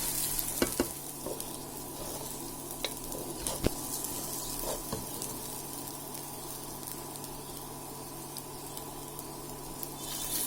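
Polao rice sizzling as it is stir-fried in ghee and oil in a frying pan, with a spatula scraping and knocking against the pan a few times in the first half.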